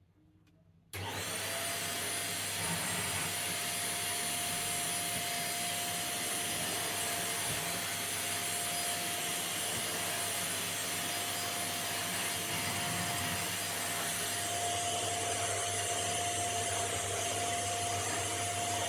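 Featherweight vacuum cleaner switching on about a second in, then running steadily with a constant whine as it is pushed over a test mess on the floor.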